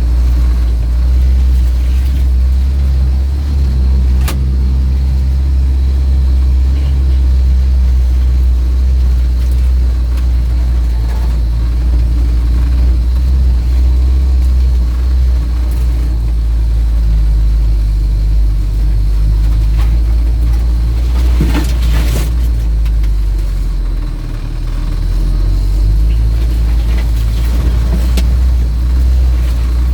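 UAZ off-road vehicle driving on a snowy road: a steady, deep engine and drivetrain rumble, easing briefly about three-quarters of the way through, with a few short knocks.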